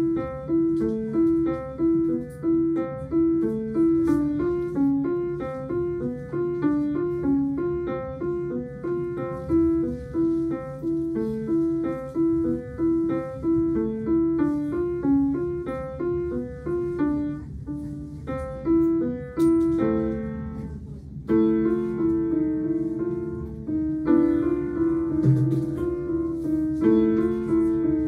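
Piano music: an even, repeating pattern of notes that breaks off briefly about two-thirds of the way through, then picks up again.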